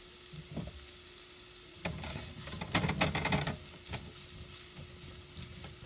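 Carrot strips sizzling in an oiled frying pan, stirred with a silicone spatula; the stirring picks up about two seconds in, with a quick run of scraping, rustling strokes around the three-second mark, over a faint steady hum.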